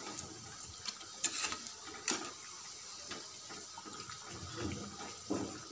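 Kachoris deep-frying in oil in a steel kadhai: a steady faint sizzle of bubbling oil, with a few light clicks of a metal slotted spoon against the pan.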